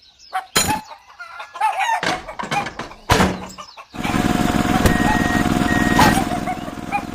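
Chickens clucking, with a couple of sharp knocks. About four seconds in, a small vehicle engine starts running steadily.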